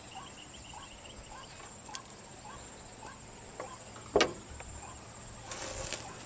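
Steady high-pitched insect drone, likely crickets, over a string of short chirps repeating about two or three times a second. A single sharp knock about four seconds in, then a brief rustle near the end.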